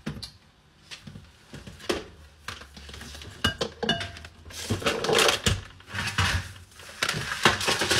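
Kitchen-counter clatter as things are moved about: dishes and utensils knocking and clinking, with a stretch of scraping and rustling about halfway through.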